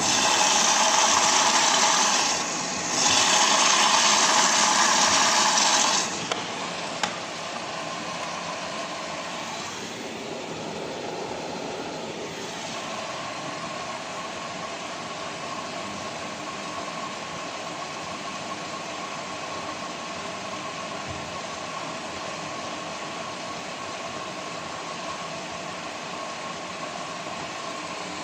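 Samsung WF1600WCV washing machine taking in water: a loud rushing hiss for about six seconds, broken briefly near the start. It then settles to a quieter steady running noise, and a steady hum comes in about halfway through.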